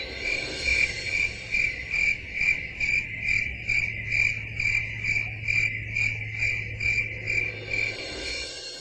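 Cricket chirping in an even rhythm, a little over two chirps a second, over a low steady hum.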